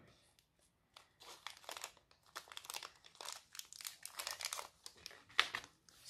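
Small clear plastic bag crinkling in the hands as pearls are picked out of it: a run of irregular crackles starting about a second in.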